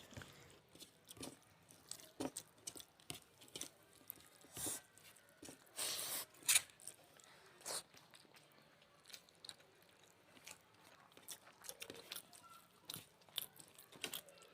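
People chewing a meal of rice and curry: wet mouth sounds and bites with many short sharp clicks, a cluster of louder ones in the middle.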